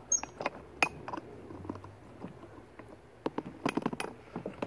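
Handling noise: irregular light clicks and knocks as the phone filming is shifted and twisted, over a faint low hum.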